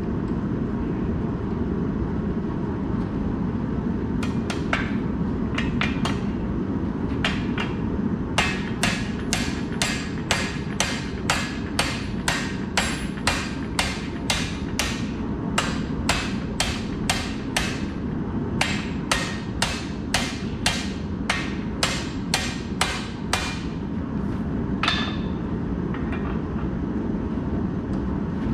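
Hand hammer striking steel bar, ringing blows at about two a second for some fifteen seconds after a few scattered strikes, over a steady low rumble in the shop.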